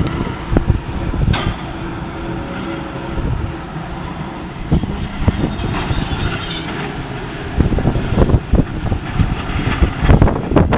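Two Э-2503В cable-operated front shovels working a limestone face: a steady machinery din with repeated knocks and clanks, coming thicker and louder from about five seconds in.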